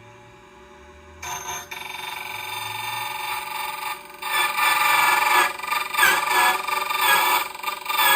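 Xhorse Condor XC-009 battery-powered key cutting machine: its motor starts about a second in and spins up with a steady whine. About four seconds in the cutter bites into a Sargent key blank, and the sound turns much louder, grinding and ringing as the key is fed across the cutter.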